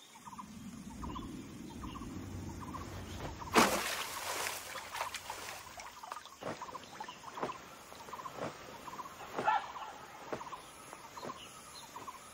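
Wild outdoor ambience with short animal calls repeating about twice a second. There is a low rumble at first, then a loud burst of rustling noise lasting about a second, three and a half seconds in, and scattered sharp clicks after it.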